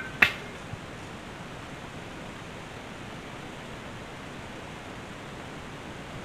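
Steady outdoor wind and rustle noise on the microphone, with one sharp click just after the start.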